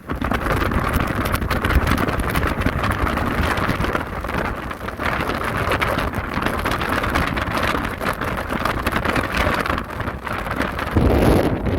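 Storm-force wind buffeting the microphone over heavy surf breaking on the shore, a continuous rumbling roar that grows louder near the end.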